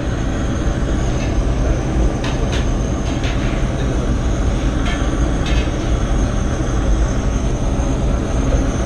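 Steady low rumble of a restaurant kitchen working around a wood-fired brick oven, with a few faint clicks about two and five seconds in.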